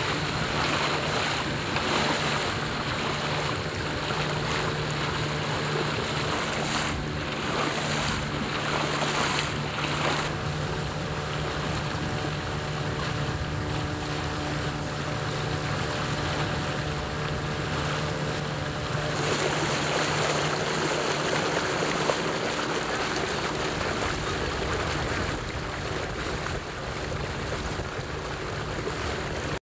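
A boat's motor running steadily under way, with water rushing along the hull and wind noise on the microphone.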